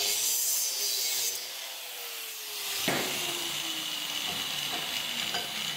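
Angle grinder with a cut-off disc cutting through steel pipe with a hissing whine for about a second, then its motor winding down with a slowly falling whine. A sharp knock about three seconds in.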